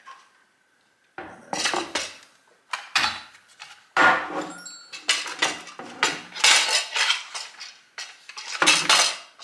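Small metal parts and tools clattering and clinking, in a run of rattling handfuls starting about a second in, as when rummaging through a tray or box of hardware.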